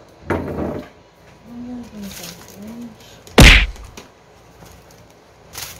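Handling noise from unpacking a new rubber flip-flop slipper: a brief rustle about half a second in, then a single loud thunk a little past the middle.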